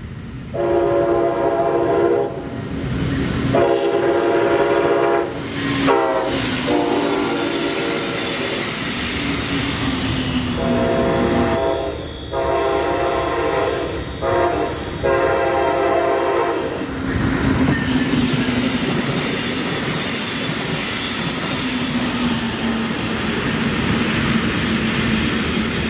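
Train horn blowing the grade-crossing signal, long, long, short, long, then three more blasts, the pitch of one short blast bending as the train nears. After that the train passes by with a steady rushing rumble and wheels clacking on the rails.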